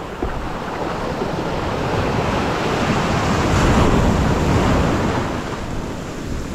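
Ocean surf breaking and churning around a camera held in the shore break, with wind on the microphone. The rush of water builds to its loudest about halfway through, as a wave washes over the camera, then eases.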